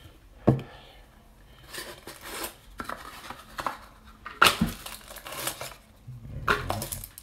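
Cardboard trading-card box and its contents being handled on a wooden desk: a sharp knock about half a second in and another about four and a half seconds in, with rustling and scraping between.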